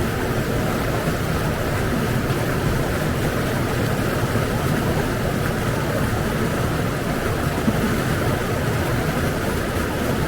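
Steady rush of running water, an even noise that does not change.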